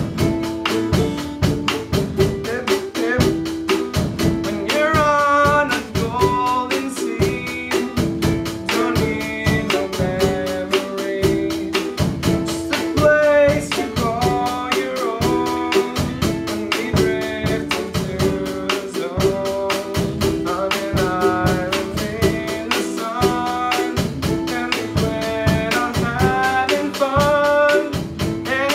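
A song with a voice singing over guitar and a drum kit keeping a steady beat.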